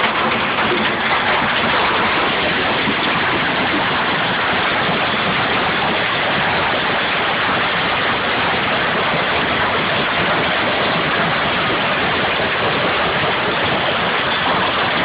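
A hailstorm of golf-ball-sized hailstones pelting down, a dense, steady hammering without let-up.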